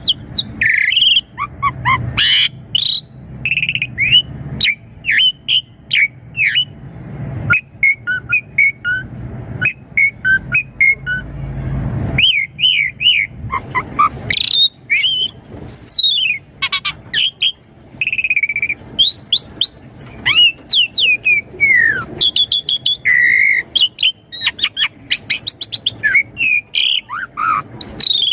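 Asian pied starling (jalak suren) singing a long, varied song: whistles that rise and fall, chirps, and quick runs of clicks. A low hum sits under the first half and stops about twelve seconds in.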